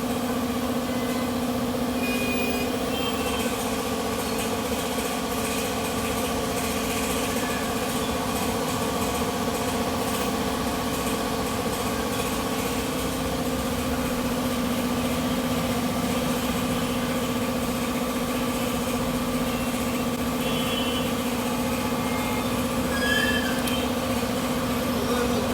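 A steady machine hum at an even level, with a few faint short high chirps over it.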